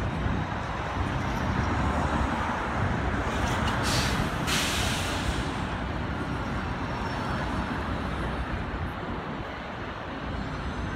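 City street traffic passing, with a sharp hiss of air brakes venting for about a second, a little under four seconds in.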